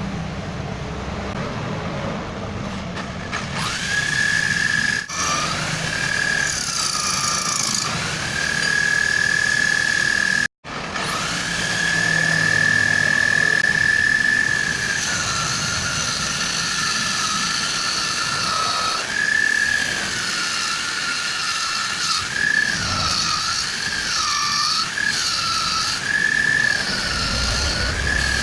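An electric power tool cutting hard laban wood, its motor whining at a high pitch that sags again and again as the cut loads it and then recovers. The sound breaks off for a moment about ten seconds in.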